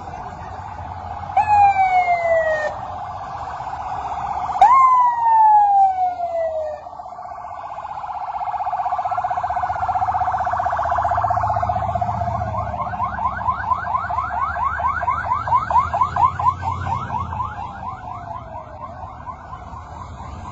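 Electronic sirens on passing emergency pickup trucks. Two sharp whoops that jump up and slide down come first, then a slow wail that switches to a fast yelp and fades near the end.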